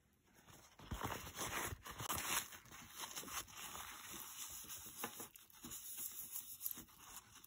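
Rustling and crinkling as jewelry and its packaging are handled and sorted, with a few small clicks.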